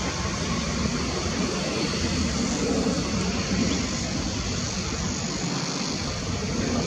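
Mirage 2000-5 fighter's single M53 turbofan running, a steady rushing jet noise from the gear-down aircraft in flight, swelling slightly about three seconds in.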